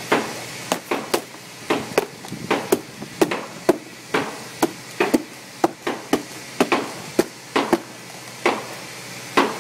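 Repeated hammer blows, about twenty sharp knocks at an uneven pace of roughly two a second, knocking the fibreglass skin off a yacht's hull.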